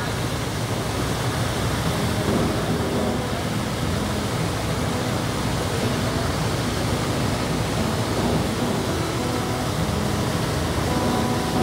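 Steady rushing of a ferry's wake, the water churned white by the propellers, with a low engine hum underneath.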